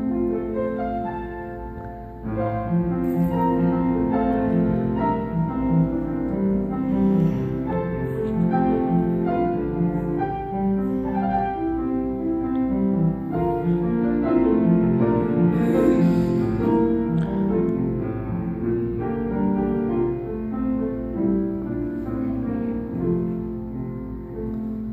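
Piano playing a solo passage of classical-style music with many overlapping notes, growing louder about two seconds in, over a steady low hum.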